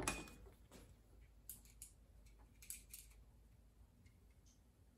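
A few faint metallic clicks and taps of hand tools against engine parts while fitting a piston's wrist pin. The sharpest click comes right at the start with a brief ring, and a handful of softer ones follow a second or two later.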